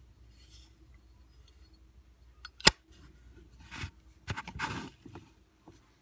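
Zippo windproof lighter with an Iron Stone finish: its hinged lid snaps shut with one sharp metallic click, followed by scraping handling noise and a few small clicks as the lighter is set back into its box.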